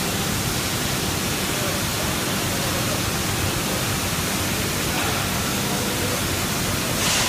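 Steady rushing noise of a water heater enamel furnace running, even and unbroken, with a brief high hiss near the end.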